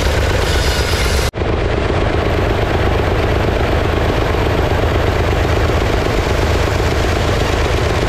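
Stationary engine driving a sawmill's belt-driven circular saw, running loud and steady at close range with a fast, even chugging rumble. The sound breaks off for an instant about a second in.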